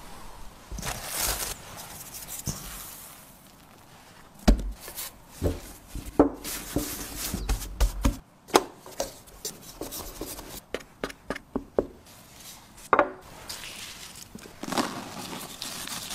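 Hands working pizza dough on a silicone baking mat: a string of irregular thumps and taps as the dough is pressed and patted out. There is a brief crinkle of plastic wrap about a second in, and a rustle of shredded cheese being spread near the end.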